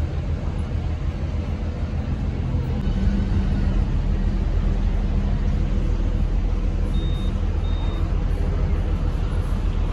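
A vehicle running steadily with a low hum that grows louder about three seconds in; two short high beeps sound about seven seconds in.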